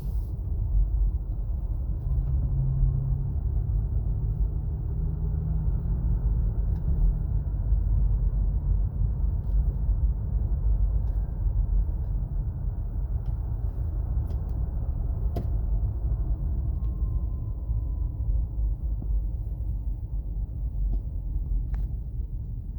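2017 Acura MDX FWD driving, a steady road and tyre rumble, with a faint whine heard briefly past the middle. This is the speed-dependent whine that is still there after a couple of PSI was let out of each tyre; the owner places it at the front passenger side.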